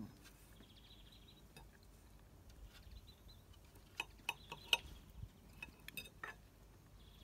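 Knife and fork clinking and scraping against a plate while cutting a grilled steak: a few sharp clinks from about four seconds in, the loudest near the middle. A bird trills faintly now and then.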